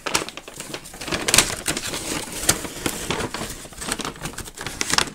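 A large white paper bag rustling and crinkling as it is handled, unfolded and lifted, a dense run of irregular crackles.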